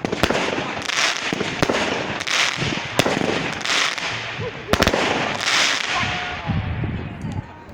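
Fireworks going off: a rapid run of sharp bangs over dense crackling, which thins out and fades near the end.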